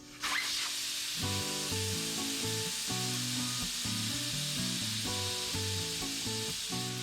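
Steady hiss of compressed air at the tyre changer, starting abruptly just after the start, over background music with a steady bass line.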